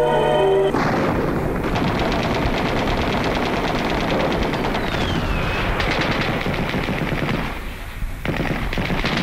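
A loud, dense rapid rattling clatter of many quick cracks in a row, with a brief lull about eight seconds in. A faint falling whistle passes through it near the middle.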